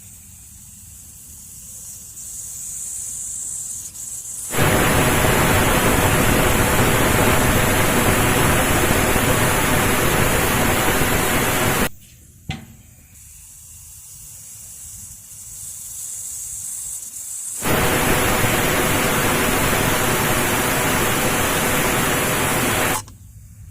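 Pressure cooker on the stove letting off steam. A hiss builds, then the whistle blows in a long loud rush of steam and cuts off abruptly. The same thing happens a second time: the hiss builds again and is followed by a shorter blast.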